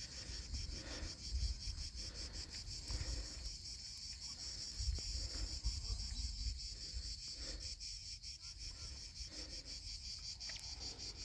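Insects shrilling in a steady high-pitched chorus from the hillside scrub, over an uneven low rumble.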